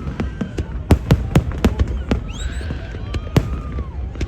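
Fireworks bursting in a rapid, irregular string of sharp bangs over a steady din, with a brief rising whistle about two and a half seconds in.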